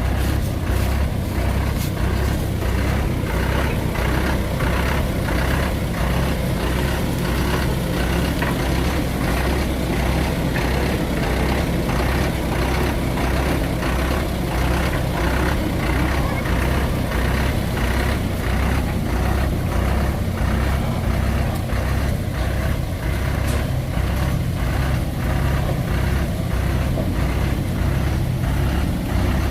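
Heavy diesel engine running steadily under load: a loud low rumble with a regular pulsing beat, from the truck or the backhoe working it out of the mud.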